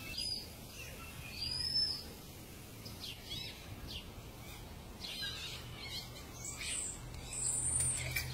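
Small birds chirping: short, high calls scattered through, some sliding up or down in pitch, over a faint steady low hum.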